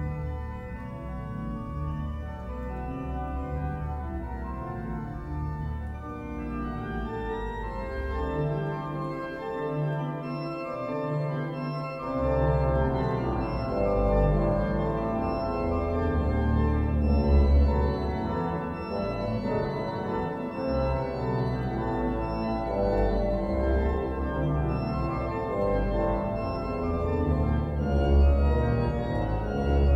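Organ playing a chorale prelude on a Christmas hymn tune, with sustained chords on the manuals over a pedal bass line. The pedal bass drops out for a couple of seconds about ten seconds in, then comes back at about twelve seconds as the playing gets fuller and louder.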